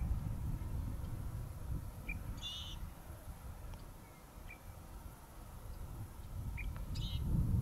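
Birds calling: brief high chirps every second or two, with two louder, buzzier calls about two and a half and seven seconds in, over a steady low rumble.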